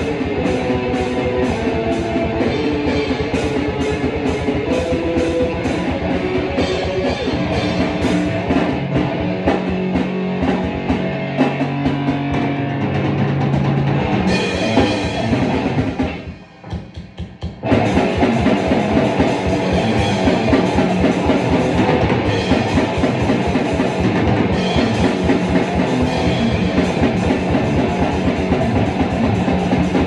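Heavy metal band playing: distorted electric guitar over fast, driving drums. About halfway through the music stops briefly, then the band comes back in.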